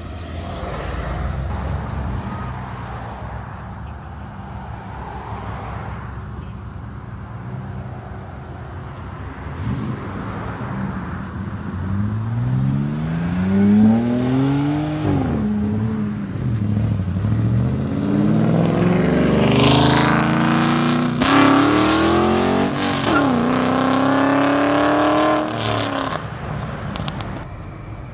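Car engines accelerating hard as cars pull away, the engine pitch rising and dropping back at each upshift. This happens once around the middle and again, louder and with several quick shifts, about two-thirds through, with road traffic between.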